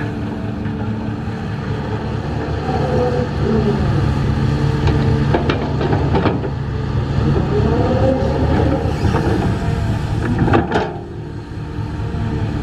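Engine of a heavy construction machine running, its pitch rising and falling twice, with a few sharp knocks; the loudest knock comes near the end.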